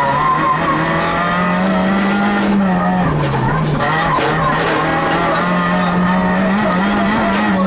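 Citroën Saxo VTS rally car's four-cylinder engine running hard on a special stage, heard from inside the cabin. The revs climb, dip briefly about three seconds in, then hold high.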